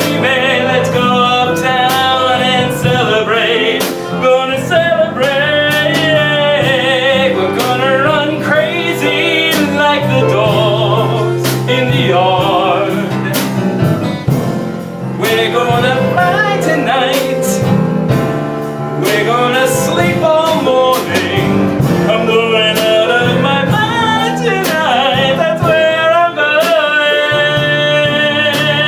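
A live band of piano, drums and guitar playing a song, with singing over it.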